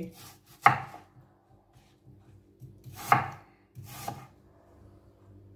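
Chef's knife slicing through a peeled green apple onto a plastic cutting board: three cuts, each ending in a knock of the blade on the board.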